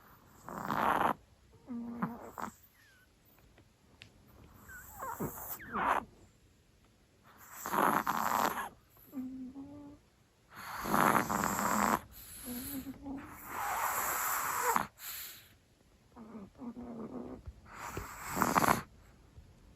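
Chihuahua snoring in its sleep: a string of irregular, rasping snoring breaths, some with a short low buzz, coming every one to three seconds.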